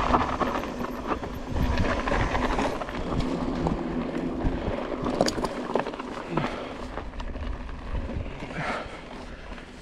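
Mountain bike riding down a rough, rocky trail: rolling tyre noise with frequent knocks and rattles as the bike goes over rock and dirt, growing quieter toward the end.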